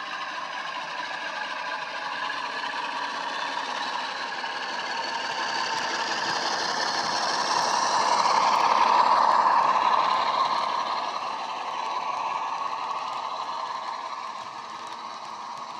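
ESU hifi DCC sound decoder playing the Sulzer diesel engine sound of a Class 47 through the model locomotive's small speaker as the model runs past. The sound grows louder to a peak about halfway through as the locomotive comes closest, then fades.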